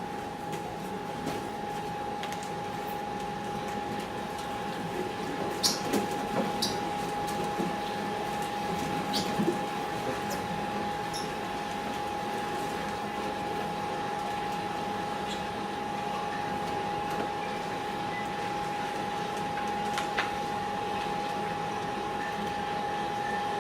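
Steady high-pitched whine over room noise, with a few scattered knocks and thumps, clustered about six to ten seconds in and once again near twenty seconds.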